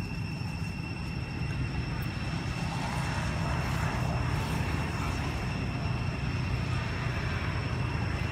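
A steady low engine drone that grows louder from about three seconds in, with a thin steady high tone above it.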